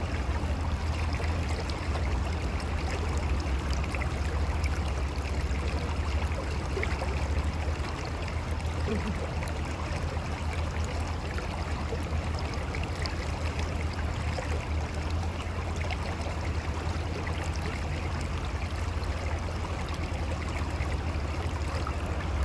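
Mountain river flowing over rocks: a steady rush of water with a deep low rumble beneath it.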